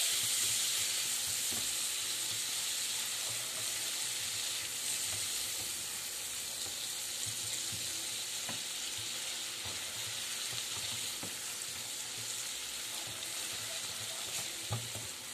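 Margarine and chopped chocolate melting and sizzling in a pan over low heat, stirred with a silicone spatula that scrapes softly now and then. The steady hiss slowly fades.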